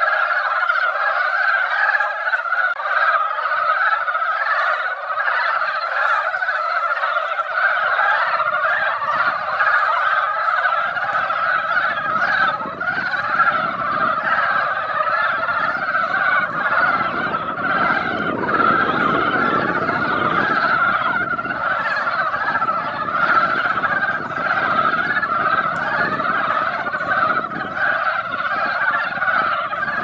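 A dense breeding chorus of Korean brown frogs (mountain frogs) calling in a pond: many overlapping croaking calls with no break. A low rumble joins underneath from about eight seconds in.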